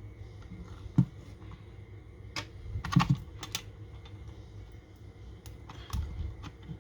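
Scattered small clicks and taps of fingers handling a compact camera's plastic body and tiny internal parts while fitting an LCD ribbon cable into its connector, with a cluster of clicks around the middle.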